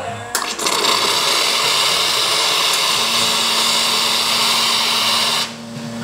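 Steam wand on a Rancilio Classe 8 DE two-group commercial espresso machine opened fully, blowing off steam in a loud, steady hiss that cuts off abruptly near the end. A steady low hum joins about halfway through.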